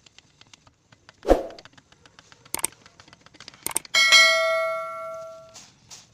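A cast aluminium piece struck once and ringing with several clear bell-like tones for about a second and a half before being stopped short. Earlier there is a dull thump and a few light metallic clicks.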